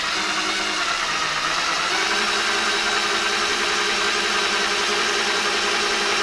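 Cordless drill running steadily under load as it drives a long threaded fastener through a plywood block into PVC pipe.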